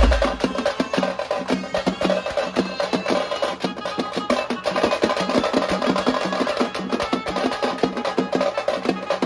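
Fast traditional drumming: rapid, sharp drum strikes several times a second, with some sustained tones underneath.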